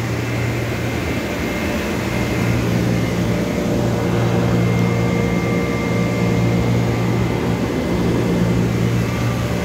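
Steady machine hum of a powered-up Doosan Puma MX1600ST CNC mill-turn lathe and its auxiliary units: a deep even hum with a faint high whine over it.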